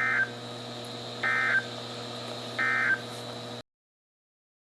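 Emergency Alert System end-of-message code: three short warbling data bursts about 1.3 seconds apart, marking the end of a severe thunderstorm warning. A steady hum lies under them, and the audio cuts off to silence about three and a half seconds in.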